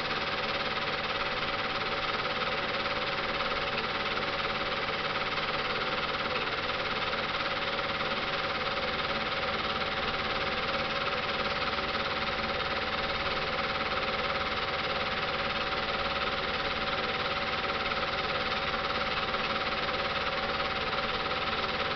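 Film projector running: a steady motor whir with a constant whine, even and unchanging throughout.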